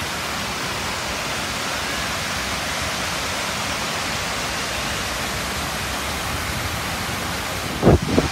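Steady rushing noise, with a brief low thump just before the end.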